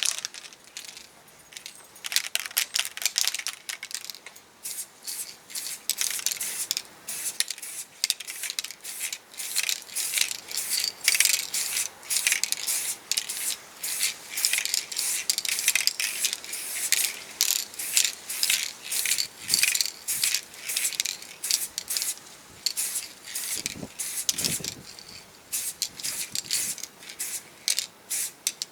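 Aerosol primer can being used on a small diecast car body: many short hissing spray bursts and rattles in quick succession, with a couple of dull knocks about 24 seconds in.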